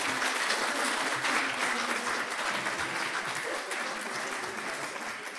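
Audience applauding: a roomful of people clapping, dense and steady at first, then slowly dying down in the second half.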